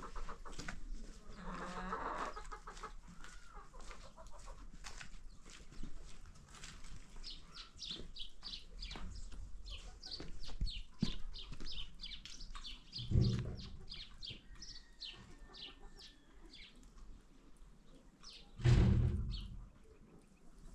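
Chickens clucking, with a long run of short, high cheeps through the middle. Two brief low rumbles stand out, one past the middle and a louder one near the end.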